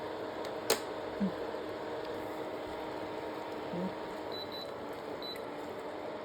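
Steady mechanical hum, as of a fan or air conditioner running. A sharp click comes early, two brief low sounds follow, and a few faint short high beeps come past the middle.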